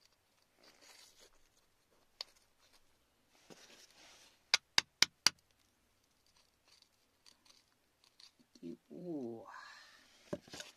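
Metal scraper working in wet gravel around a stone, with faint scraping and four sharp taps in quick succession about halfway through. Near the end a short voice-like sound rises in pitch.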